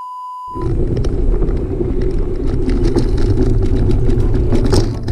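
A steady electronic beep tone that cuts off about half a second in, followed by a loud, steady low rumbling noise with scattered faint clicks.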